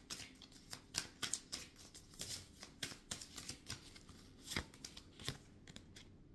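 A deck of tarot cards being shuffled by hand: a quick, irregular run of soft card clicks and flicks, with two louder snaps late on.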